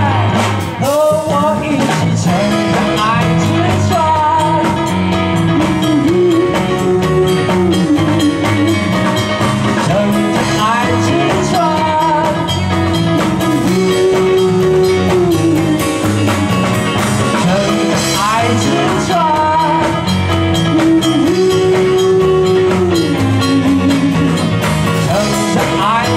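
Live pop-rock band playing: electric guitar, keyboard, bass and drums with a steady beat, and a melody line that holds and bends over it.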